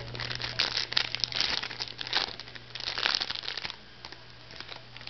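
Crinkling of packaging as football trading cards are handled and unwrapped, busy for the first three seconds or so and then quieter.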